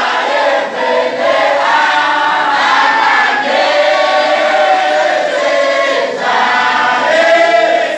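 A group of men and boys chanting a Sufi wadifa together in unison. The voices sing long, continuous phrases with brief breaks between them.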